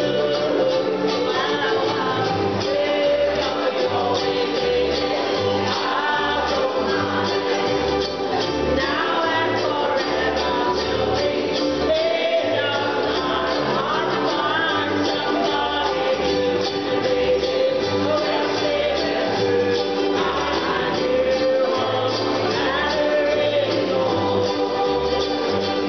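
A ukulele ensemble strumming a steady, even rhythm over a low bass line, with voices singing the melody.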